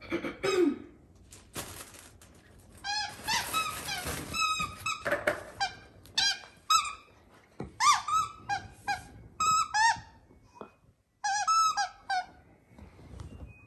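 A puppy biting and chewing a plush squeaky toy, setting off repeated high squeaks in quick clusters. There is a stretch of rustling a few seconds in.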